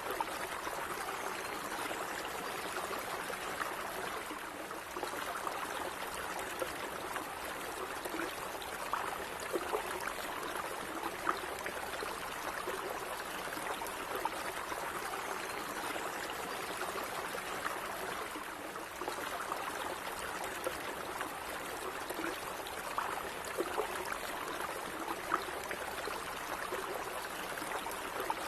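Calm running stream water: a steady babbling flow with small gurgles and splashes popping out here and there.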